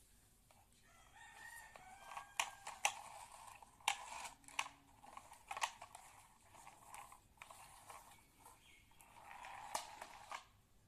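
A rooster crowing faintly, mixed with sharp clicks and knocks of plastic toy vehicles being handled on a tiled floor.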